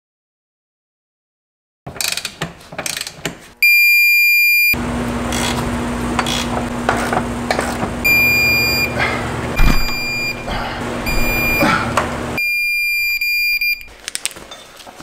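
Digital torque wrench beeping loudly and steadily as it reaches its set torque on the subframe bolts, with ratchet clicks just before the first beep about two seconds in. A dense mechanical noise with a steady low hum runs through the middle, broken by short repeated beeps and ending in one long beep.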